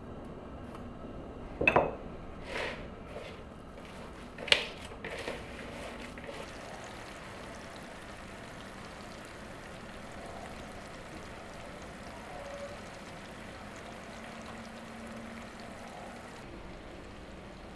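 Chopped onions sizzling steadily in oil in a frying pan. A few sharp knocks break in during the first five seconds, the loudest about two and four and a half seconds in.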